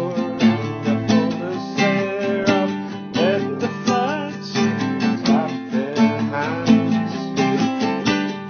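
Music: strummed acoustic guitar with a steady rhythm, with a voice singing along.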